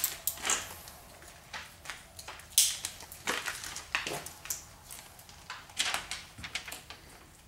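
Window tint film being trimmed with a dull razor blade and the excess pulled off the glass: a series of short, irregular scrapes and rustles, the loudest about two and a half seconds in.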